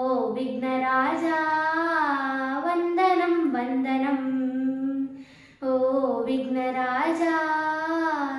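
A girl singing a devotional song to Ganesha without accompaniment, in long held notes that bend in pitch, in two phrases with a brief breath a little past halfway.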